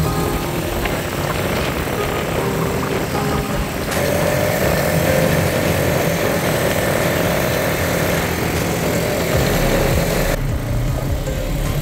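ATV engines running steadily while the machines ride over sand, with wind noise. The sound changes abruptly twice, about four seconds in and near the end, as between separate clips.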